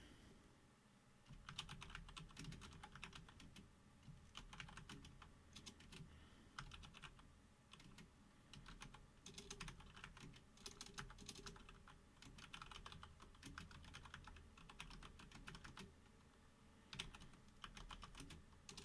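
Faint typing on a computer keyboard: runs of quick key clicks with short pauses between them.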